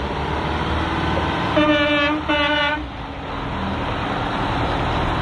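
A heavy truck's horn sounds twice in short blasts about a second and a half in, over the steady noise of the big truck driving.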